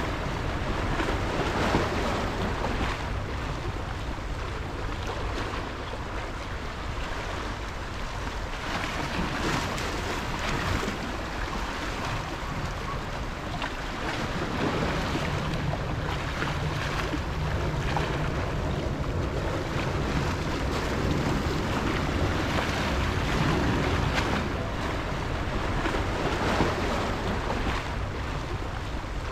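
Sea waves washing and breaking against shoreline rocks, with wind buffeting the microphone.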